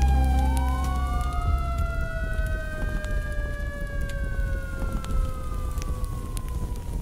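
A siren wailing: one tone rises slowly for about four seconds and then falls, while a second tone slides steadily lower, over a low rumble.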